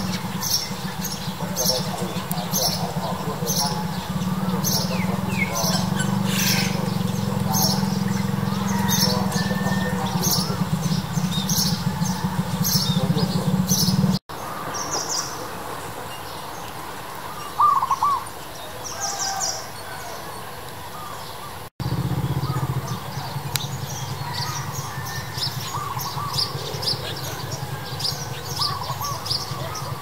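Birds chirping, short high calls repeating about once a second over a steady low hum. The sound cuts off sharply twice, and in the quieter middle stretch the hum drops out, leaving a few scattered calls.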